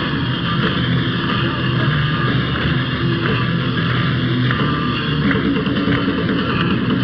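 Rock band playing loud live, with electric guitar to the fore, heard as a dense, distorted wash of sound with sustained notes underneath.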